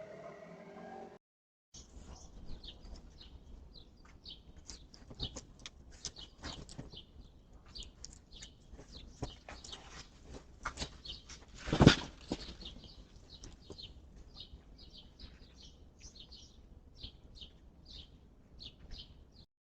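Small birds chirping in quick, repeated short calls, with scattered clicks and a single loud thump about twelve seconds in.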